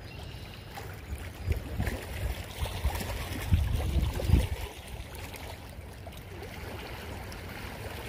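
Small waves lapping against the rocky lake shore, with wind gusting on the microphone, strongest about halfway through.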